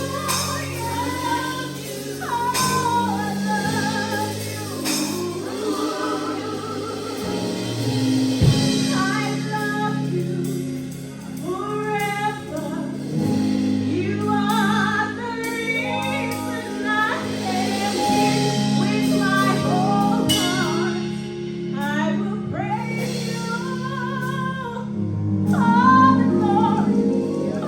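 Gospel music in a church service: female voices and a choir singing over steady instrumental accompaniment.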